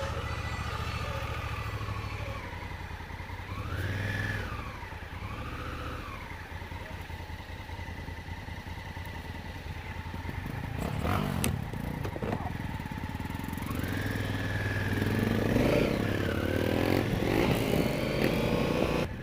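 Adventure motorcycle engine running and revving up and down, with a few sharp knocks about ten seconds in.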